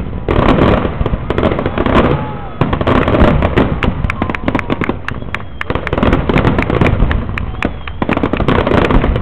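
Aerial fireworks display: rapid, dense bangs and crackling shell bursts going off continuously, with a few short whistling glides among them.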